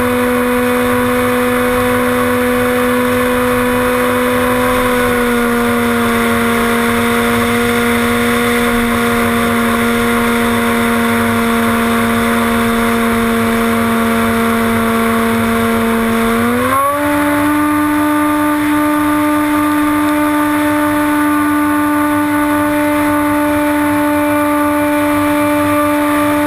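The electric motor and pusher propeller of a HobbyKing Bixler RC glider, heard from a camera on board, running with a steady whine over wind rush. The pitch dips slightly about five seconds in, then climbs quickly to a higher steady pitch about seventeen seconds in.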